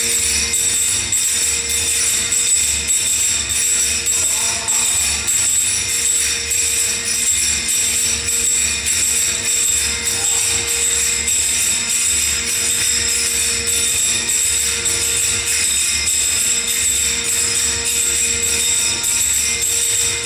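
Recorded dance music playing, with a steady low drum beat, held tones and jingling, tambourine-like percussion.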